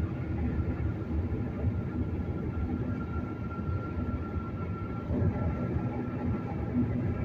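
Steady road noise from inside a car cruising at highway speed: a continuous low rumble of tyres on concrete pavement and the engine.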